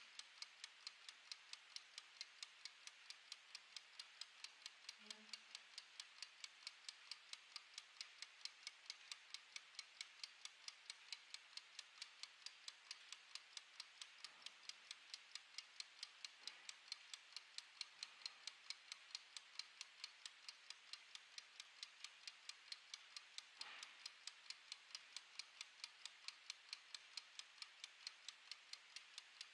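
Mechanical wind-up kitchen timer's clockwork ticking, faint, quick and perfectly even as it counts down.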